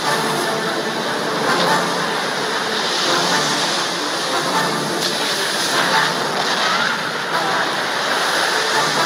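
Steady rushing roar of floodwater surging through a ship's corridor.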